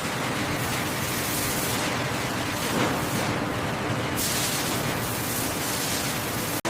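Steady, loud hissing noise of factory machinery, even throughout, starting and cutting off abruptly.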